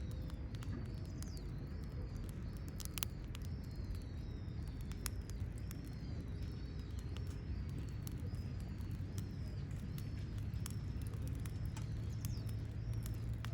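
Campfire of burning firewood crackling, with scattered sharp pops, while a bird chirps over and over in the background.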